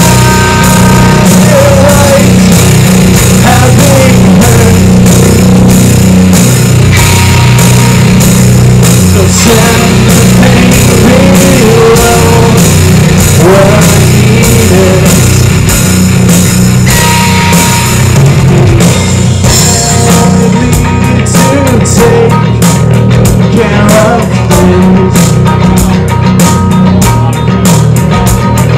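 Live rock band playing loud: distorted electric guitar, bass guitar and drum kit, with a lead vocal sung into a microphone. The drum hits stand out more sharply in the second half.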